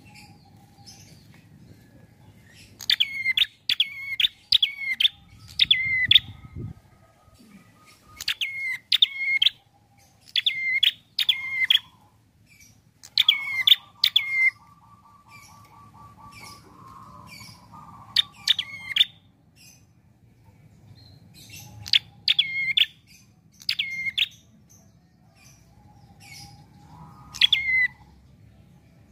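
Caged prenjak (small Indonesian warbler) singing in short loud bursts of two to five quick, sharply repeated notes, a burst every few seconds, with a fainter buzzy trill in between.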